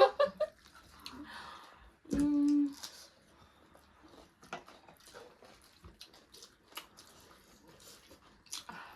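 Faint scattered mouth and eating clicks, with one short, loud hummed vocal sound about two seconds in.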